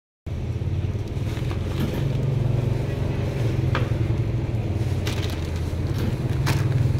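A steady low mechanical hum, with a few sharp clicks of packaged goods being handled on a metal checkout counter.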